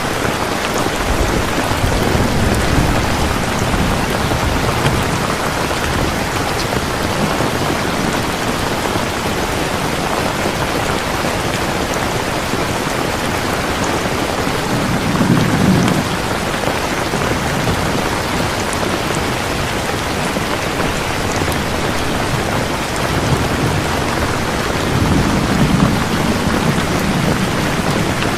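Steady heavy rain falling, with low rumbles of thunder three times: a few seconds in, midway, and near the end.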